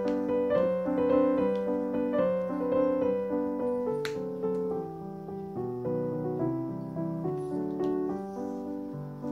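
Background music: a solo piano waltz playing a steady run of notes.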